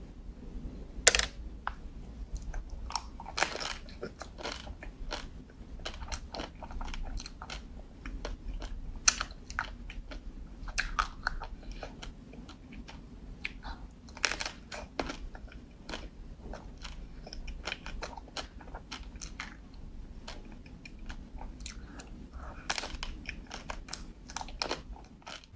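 Close-up eating of ice cream: irregular crisp crunching, biting and chewing, with a few louder crunches among the steady chewing.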